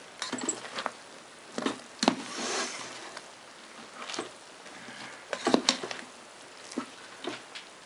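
Black plastic spoon stirring cooked pilaf in a multicooker's bowl: irregular short knocks and scrapes of the spoon against the bowl, with the soft squish of the rice being turned.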